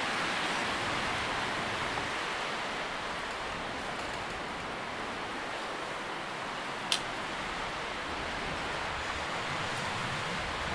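Wind moving through tree leaves, a steady rustling hiss. A single short, sharp tick about seven seconds in.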